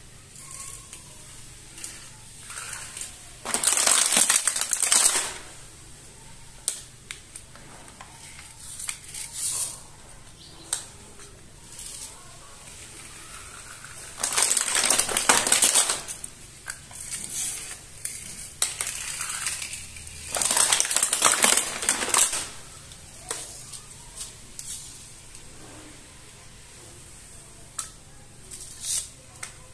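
Clear plastic blister packaging crinkling as hands press and handle it, three times for a second or two each, with small clicks and taps of plastic toy pieces on a tabletop in between.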